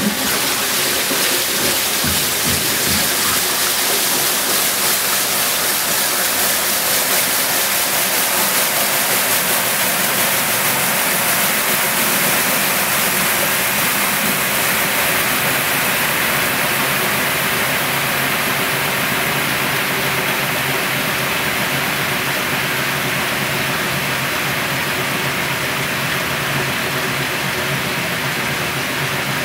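1963 Frigidaire Custom Imperial washer in its spin, the basket whirling and throwing out the wash water while the motor and belt-drive Multi-Matic transmission run steadily. The rushing water hiss thins out about halfway through.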